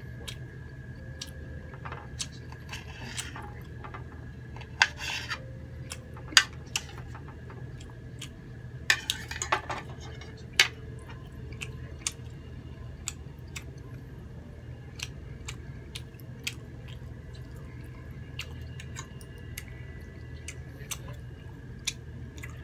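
Metal knife and fork clicking and scraping on a ceramic plate as grilled squid is cut and forked up, with chewing between. The loudest clinks come between about five and eleven seconds in, over a steady low hum.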